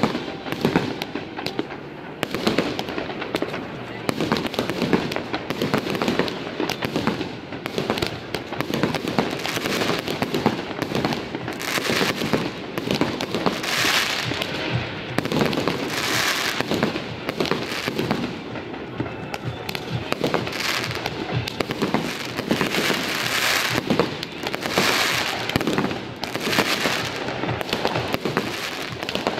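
Aerial fireworks bursting in quick succession, picked up by a phone's built-in microphone: a dense, continuous run of bangs. Several brighter, crackling flurries come in the second half.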